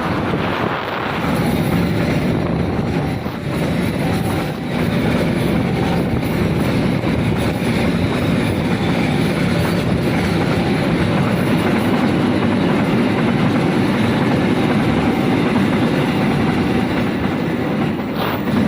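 Train passing at a level crossing: a steady, loud rumble and clatter of wheels and carriages rolling over the rails.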